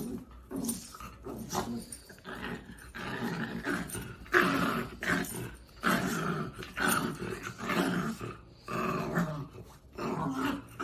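A dog vocalizing in a string of short growly grumbles, roughly one or two a second.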